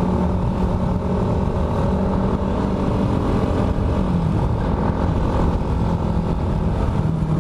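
Honda Supra Fit underbone's single-cylinder four-stroke engine running steadily while the motorcycle is ridden at cruising speed. The engine note drops a little about halfway through.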